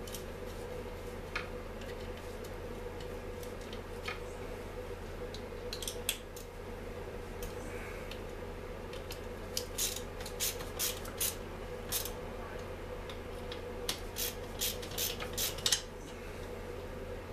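Hand work on a dismantled Stihl MS 250 chainsaw: small metal parts and tools clicking and clinking, sparse at first and coming in quick runs in the second half. A steady low hum runs underneath.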